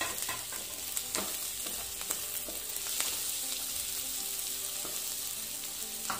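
Sliced onions, green chillies, garlic and ginger sizzling steadily in butter and oil in a nonstick kadai, the onions sautéed to translucent. A wooden spatula stirs them, with a few scrapes and taps against the pan.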